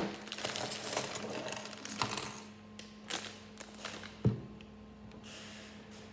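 Plastic Lego pieces clicking and clattering against a tabletop as they are handled and set down: a few sharp clicks spread out, with the loudest, duller knock about four seconds in.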